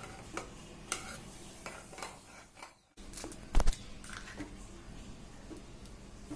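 A metal spoon clicks against a bowl as raw eggs and spices are stirred together. The sound drops out briefly, then come two sharp knocks of an egg being cracked on the bowl, followed by more spoon clicks as the mixture is stirred.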